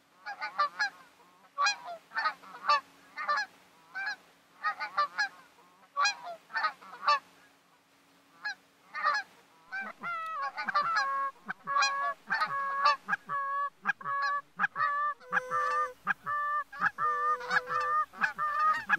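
Canada geese honking in flight, a flock calling over and over in short repeated honks. The calls grow denser and more continuous from about halfway through, as more birds call at once.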